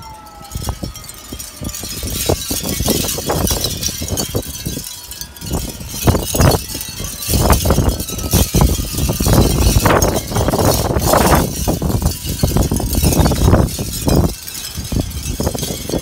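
Shell-disc wind chime clattering in a strong gusty wind, with heavy wind buffeting the microphone in uneven gusts. A siren's falling wail fades out in the first second.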